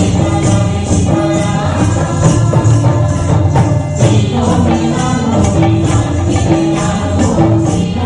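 Live folk dance music: group singing over drums, with a metallic jingle marking a steady beat about two to three times a second.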